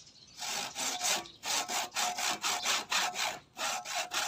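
A hand saw cutting through a live bougainvillea branch in quick back-and-forth strokes, about four or five a second, starting about half a second in with a couple of brief pauses.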